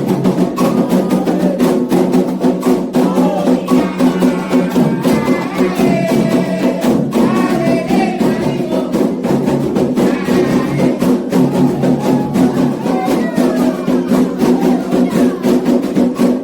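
Candomblé xiré music: fast, dense hand drumming with a sharp struck percussion keeping time, and voices singing a chant over it from about four seconds in.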